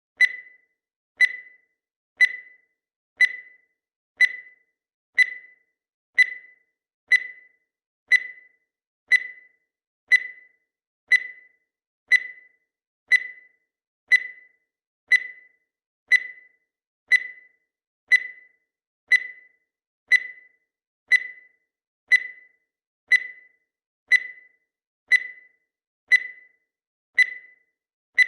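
Countdown timer sound effect: a short, high electronic beep once every second, each one sharp and dying away quickly, evenly spaced and unchanging.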